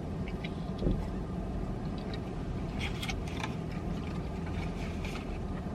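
Steady low hum inside a parked car, with short crinkling rustles of a fast-food paper wrapper being handled a few times.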